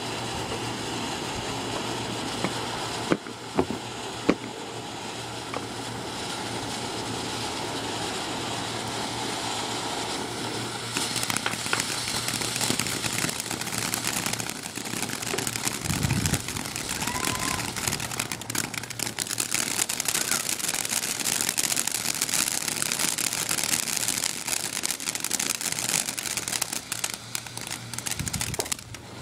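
Ground fountain firework spraying sparks with a steady hiss, with a few sharp pops a few seconds in. From about a third of the way through it breaks into dense crackling.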